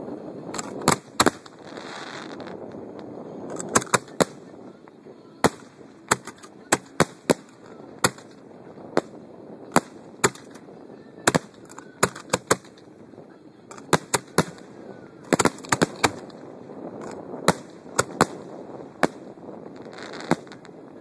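Professional display fireworks going off at close range: an irregular string of sharp bangs, at times several a second.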